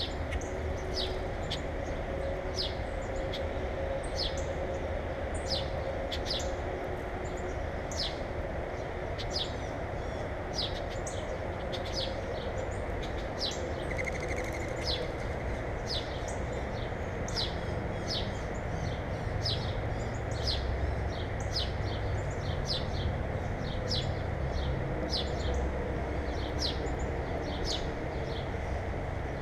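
Small birds giving short, high chirps over and over, one or two a second, over a steady low rumble.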